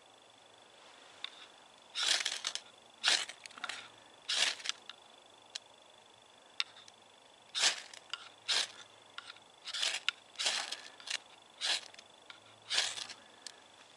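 Knife scraping down a ferro rod, struck about a dozen times in short, sharp, irregular strokes to throw sparks onto birch bark and fatwood tinder to light a fire.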